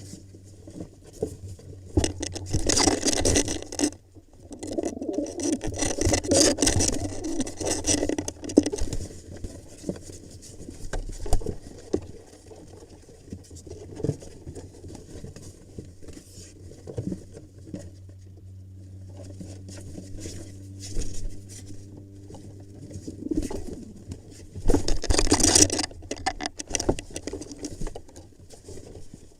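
Rock pigeons fighting inside a nest box: bursts of wing-flapping and scuffling against the box, with scattered knocks and scrapes. A steady low hum runs underneath.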